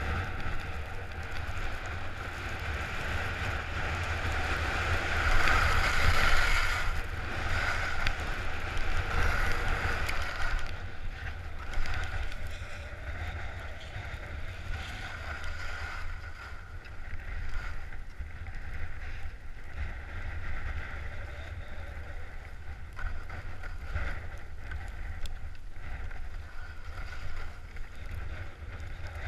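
Skis hissing over snow, with wind rumbling on a GoPro's microphone. The ski hiss is strongest for the first ten seconds or so, then eases.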